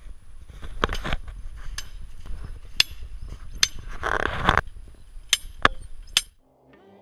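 Sharp metallic knocks at uneven intervals as a hand-held steel bar with a T-handle is worked into snowy ground, with wind rumbling on the microphone. A short scraping rush comes a little after four seconds in.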